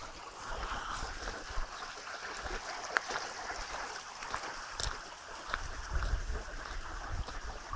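Steady rush of water flowing along an earthen channel. Gusts of wind rumble on the microphone around a second in and again near six seconds, with a few sharp clicks.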